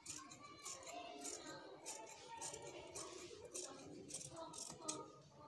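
Scissors snipping through two layers of cloth in short cuts, roughly one every half second.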